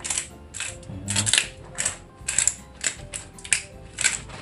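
Small handheld spice grinder twisted back and forth over a steel bowl, grinding whole spices in quick ratcheting, crunching strokes about two a second. The grinder is small and stiff to turn.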